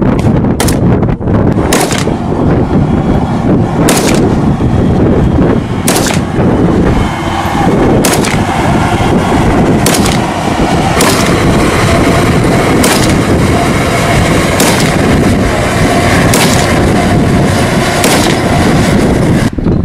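Kalashnikov-type assault rifles firing single aimed shots, one every one to two seconds, about fifteen sharp cracks in all, over a constant heavy rumble.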